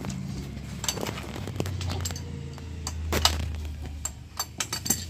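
Metal clinks and taps as the steel wire-guide rollers on a chain-link fencing machine are loosened and adjusted by hand. The clicks are scattered at first and come in a quick cluster near the end.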